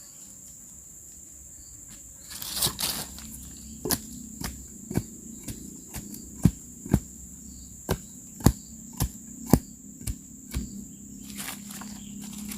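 About a dozen sharp knocks at roughly two a second, starting some four seconds in: bamboo being struck as it is worked. A brief rustling scrape comes just before them, and crickets keep up a steady high-pitched drone underneath.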